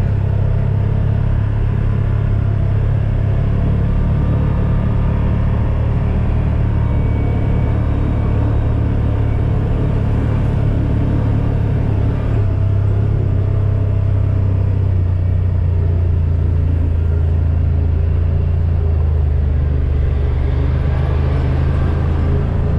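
Motor vehicle engine running steadily while driving on the road, a low drone with road rumble; its pitch shifts a little about halfway through.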